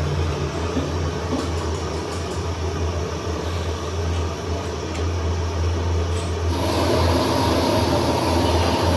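A motor or engine running steadily with a low hum. A louder hissing or grinding noise joins about two-thirds of the way through.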